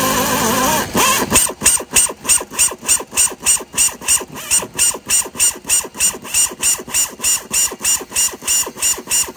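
A power drill bores out a broken hub-cap bolt in a truck's wheel hub. It runs steadily for about a second, then in short, even pulses, about four a second.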